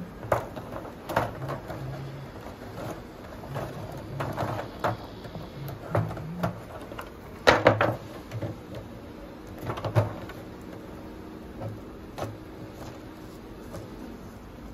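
Wooden beehive parts and a thin plastic sheet being handled as the hive is closed: a string of irregular knocks and clicks as the sheet is laid over the frames and a wooden-framed board is set down on the box, the sharpest knock about halfway through.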